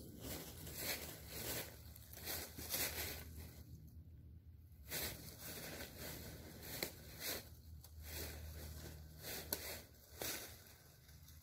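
Faint, irregular bursts of rustling and crinkling, starting and stopping every second or so, over a low steady rumble.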